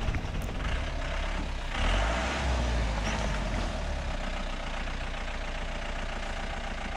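Mahindra Marshal jeep's engine running as it drives slowly over a rough, rocky dirt track, with tyre and road noise, heard from outside the driver's window. It grows briefly louder about two seconds in.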